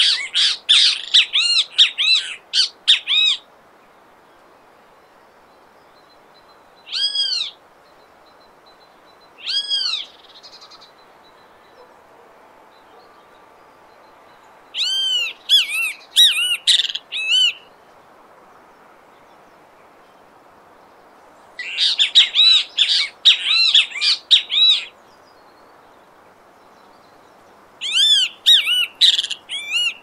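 Great kiskadee calling. It gives bursts of rapid, repeated arched notes a few seconds apart, with two single notes between the first bursts.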